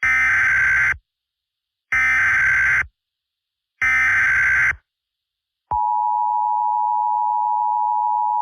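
Emergency Alert System header: three harsh, buzzy digital data bursts of about a second each, spaced about two seconds apart. Then, about six seconds in, the steady two-tone EAS attention signal begins, announcing a new alert message.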